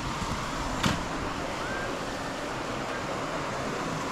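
Steady rush of flowing creek water, with a single sharp click about a second in.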